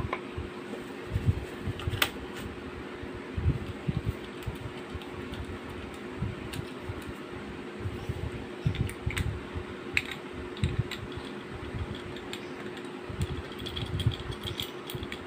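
Scattered small clicks and knocks of hands handling a metal Wingun 708 CO2 airsoft revolver as a CO2 cartridge is fitted into its grip, over a steady fan hum.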